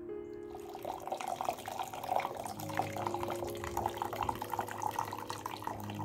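Soft background music over a steady run of water splashing and trickling, which starts about half a second in.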